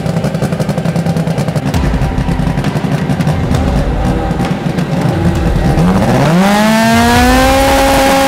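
Drag race car engine running with a rough, pulsing note, then revving sharply about six seconds in and holding steady at high revs.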